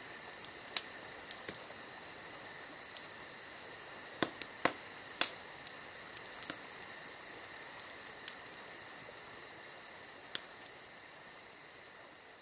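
Crickets chirping in a steady high trill, with a few sharp clicks scattered through, fading slowly toward the end.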